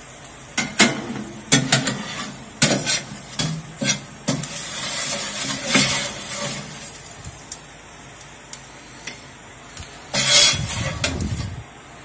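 Fresh-cooked chicken nuggets sizzling on a hot metal air fryer tray, a steady hiss under repeated clinks and knocks of metal utensils and tray as they are taken out. A louder spell of clatter comes about ten seconds in.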